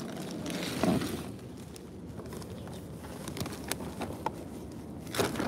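Black plastic trash bag rustling and crinkling as it is handled, with a few light clicks and knocks from things moving inside.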